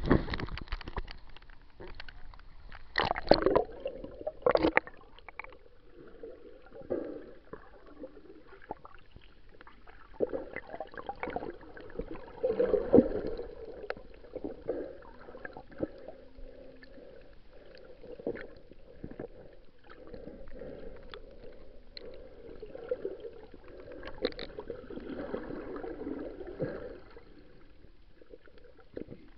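Sea water heard with the microphone under water: a few sharp splashes about three to five seconds in, then muffled gurgling and sloshing with scattered small clicks and crackles.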